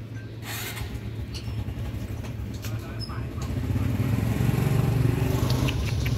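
A motor vehicle engine running nearby, a steady low hum that swells about four seconds in. Light clicks near the end from the cat chewing food out of a plastic bag.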